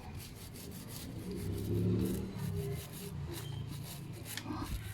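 Stiff brush scrubbing a motorcycle chain in repeated short strokes, working off grime loosened by chain cleaner. Under it, a vehicle engine swells and fades about two seconds in as it passes.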